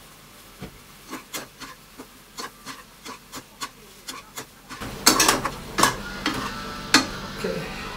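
Stir-frying Chinese kale sprouts in a frying pan: a metal spatula and spoon scrape and tap against the pan in short strokes about three a second. From about five seconds in it gets louder, with sizzling and sharp clanks as the greens are tossed.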